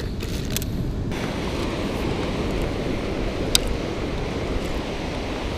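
Steady surf and wind noise on the microphone, with a single sharp click about three and a half seconds in.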